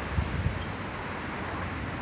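Strong wind blowing on the microphone: a steady hiss with low rumbling gusts, strongest in the first half second.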